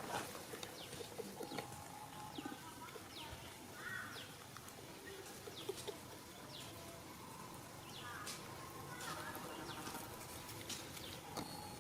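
Faint, scattered short animal chirps and calls with occasional clicks over a quiet outdoor background.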